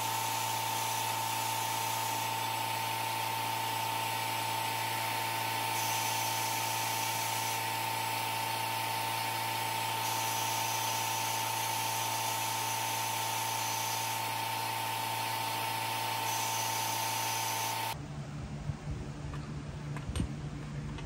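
A small high-speed power tool running steadily with a constant whine, cutting off suddenly near the end. A lower, uneven sound with a few sharp ticks follows.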